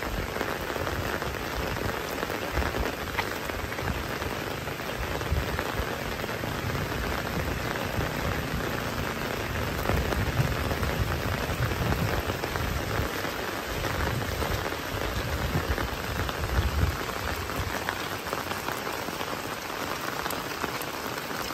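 Heavy rain falling steadily, an even wash of noise, with irregular low thuds underneath.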